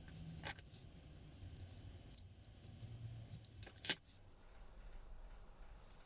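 Small metal clicks and clinks of a rebuilt padlock and its key being handled: a few sharp clicks, the loudest pair just before four seconds in.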